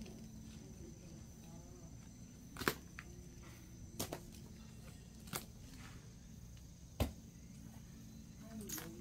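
Quiet handling of a small cordless chainsaw held against a log before cutting: four sharp clicks or knocks, one every second or so, over a faint steady background, the saw not yet running.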